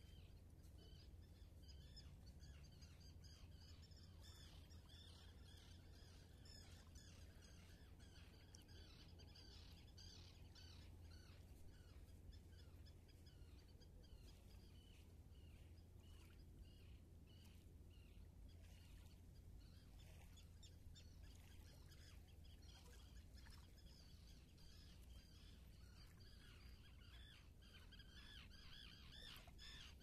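Faint chorus of small songbirds chirping and twittering continuously, many short calls overlapping, over a steady low hum.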